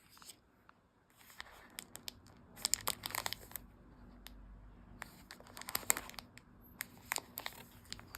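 Crinkling and rustling in three bursts of sharp crackles, about two, five and seven seconds in, with quiet room tone between.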